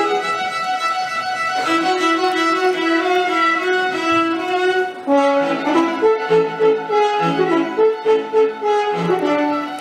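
A small string ensemble of violins, viola and cello plays classical-style chamber music, with a violin melody on top. Long held notes give way about halfway through to shorter, rhythmically pulsing notes.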